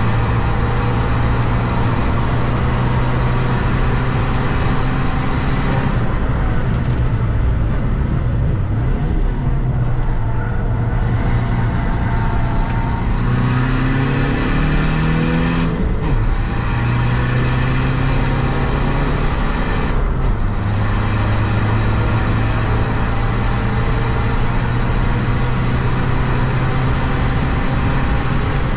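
SEAT Ibiza FR's 2.0 TDI common-rail four-cylinder diesel engine driven hard on track, heard from inside the cabin together with tyre and road noise. The engine note climbs about halfway through and breaks off suddenly, with a few brief dips in the noise elsewhere.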